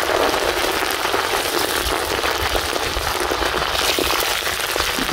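Fresh curry leaves deep-frying in hot groundnut oil, a dense, steady crackling and sizzling. The crackle means the leaves are still frying; once it stops, all the leaves are fried crisp.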